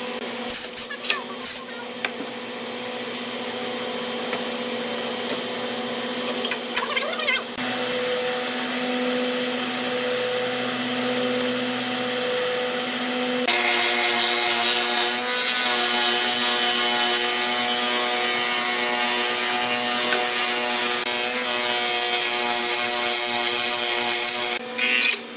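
Electric power tool working hardwood: a steady motor whine under a harsh high rasp, changing pitch and texture twice as the load on the tool shifts.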